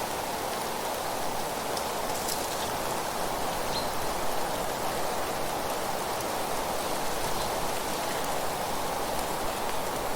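A steady, even rushing hiss of rain-like nature ambience. A few faint ticks sit in it, and a brief high note comes about four seconds in.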